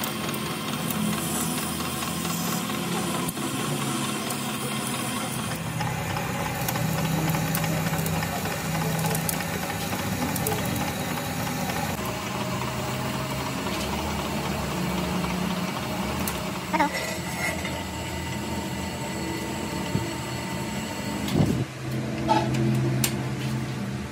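Metal lathe running while a spiral-fluted drill in the tailstock bores into the face of the spinning metal blank: a steady machine hum with cutting noise. A couple of sharp knocks come in the last third.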